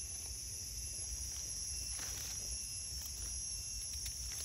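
Steady high-pitched insect chorus over a low rumble. About two seconds in and again near the end come faint rustles and scrapes as a knife trims the dirt off a mushroom stem among dry leaf litter.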